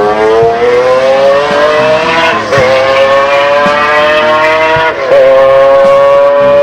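McLaren F1 GTR's 6.1-litre BMW V12 racing engine accelerating hard, its pitch climbing steadily, with two quick upshifts about two and a half and five seconds in.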